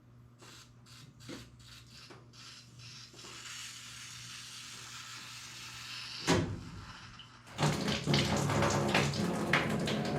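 Pipe cutter wheel being turned around a copper water pipe, ticking and scraping with each turn. A sharp clunk a little past six seconds as the pipe parts, then from about seven and a half seconds the water left in the drained line splashes out of the cut.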